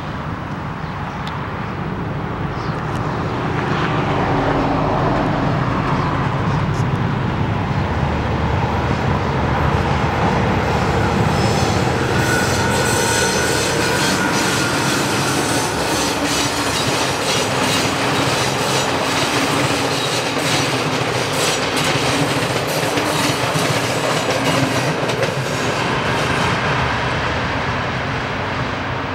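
MÁV class M41 diesel locomotive passing with an express train of coaches. Its diesel engine grows louder over the first few seconds, then the wheels clatter rhythmically over the rail joints and the level crossing as the coaches go by. The sound eases off near the end as the train draws away.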